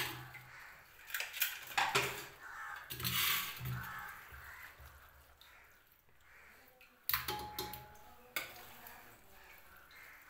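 Metal spoon scraping and clinking against a metal bowl while marinated chicken is scooped by hand into an aluminium pressure cooker, with soft thuds of the meat dropping in. Two sharp metal clinks come near the end, the first ringing briefly.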